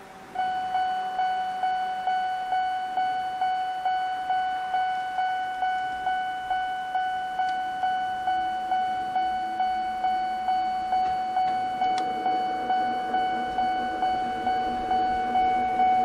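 Japanese railway level-crossing warning bell on the Eizan Electric Railway starting up: an electronic alarm repeating one ringing tone a little under three times a second, signalling that a train is approaching. About halfway through a lower steady hum joins underneath.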